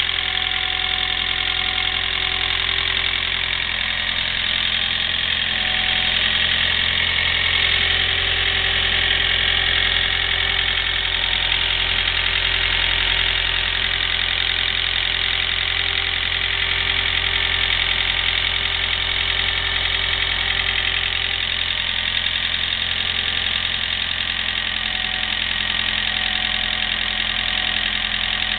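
Toyota Ractis 1.3 L four-cylinder engine (1NR-FE) idling after a cold start, with a steady rapid clicking ("kachi-kachi") from the timing chain, tappets and cylinder head. The owner puts it down to a wrongly angled oil jet leaving the cylinder head chattering.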